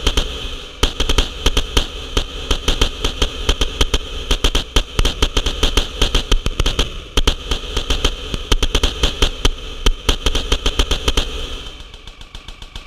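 Electronic glitch soundtrack: a dense, rapid stream of loud clicks and crackles over a low pulse. About twelve seconds in it drops to a quieter, more even clicking.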